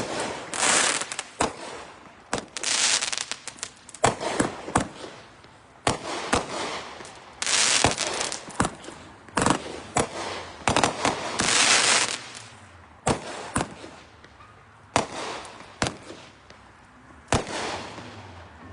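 Five fused Venom series consumer firework cakes firing: irregular volleys of sharp cracks and reports mixed with longer hissing bursts, easing off near the end.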